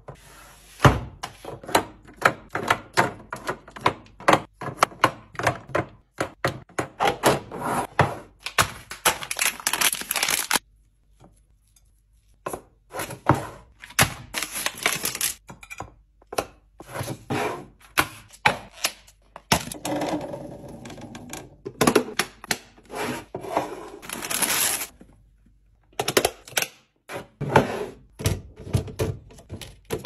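Clear plastic fridge organizers and food being handled on a countertop: many quick clacks, taps and knocks as containers are set down and items placed in them, with some rustling. The handling stops briefly twice.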